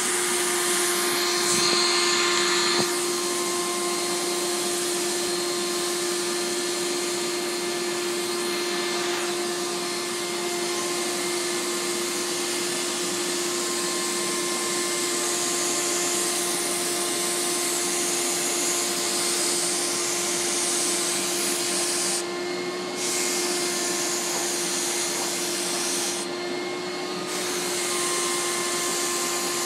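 Fuji three-stage HVLP turbine running steadily with a hum, and the gravity-feed spray gun hissing as it sprays undiluted marine spar varnish. The high hiss drops away briefly twice in the last third.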